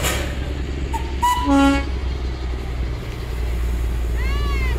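Darjeeling toy train locomotive giving a short whistle toot about a second and a half in, over the steady low rumble of the train. A brief rising-and-falling call is heard near the end.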